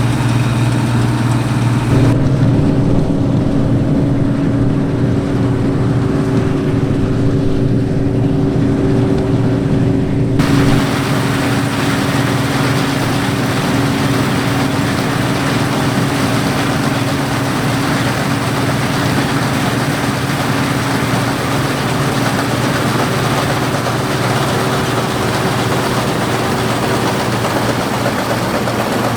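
Claas Dominator 85 combine harvester running steadily at work in wheat: an even diesel engine drone mixed with threshing machinery noise, which changes abruptly twice in the first ten seconds or so.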